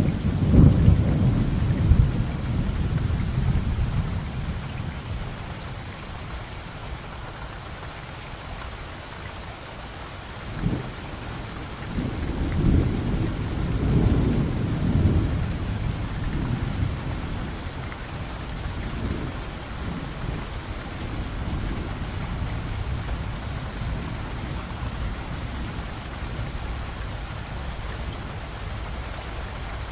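Steady rain with thunder rumbling low several times, loudest at the start and again about twelve to fifteen seconds in, then fading to a softer rumble under the rain.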